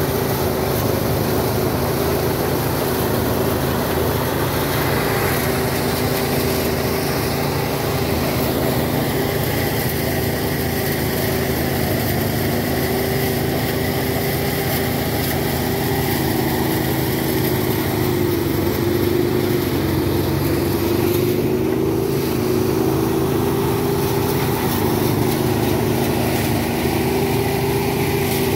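Small engine of a motorised rice thresher running steadily, its pitch sagging briefly about two-thirds of the way through before recovering.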